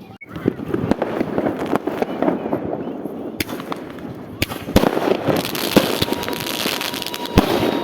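A fireworks display: aerial shells bursting in rapid, dense cracks and bangs, with several louder booms and a crackling hiss building over the second half. A thin steady whistle sounds near the end.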